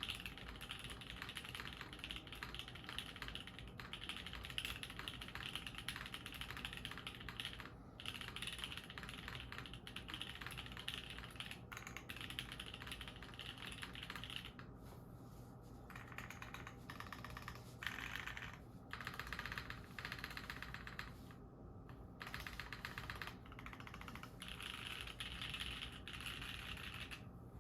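Typing on a Jalter aluminium top-mount mechanical keyboard fitted with SP Star Ube Crinkles: a steady, fast run of keystrokes with a few short pauses in the second half.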